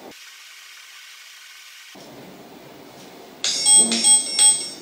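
Smartwatch notification alert: after a faint hiss, a quick run of three or four identical high chimes about a third of a second apart, starting about three and a half seconds in.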